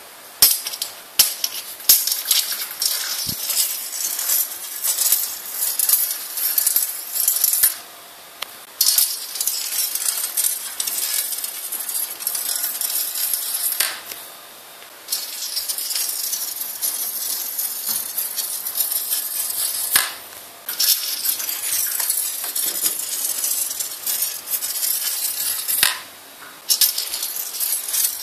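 Neodymium magnet scraping and clicking against an aluminum bar as it slides down it, held back by eddy-current braking (the Lenz effect). The slide comes in runs of about five or six seconds with short pauses between them, and a few sharp clicks come as the magnet is set on the bar near the start.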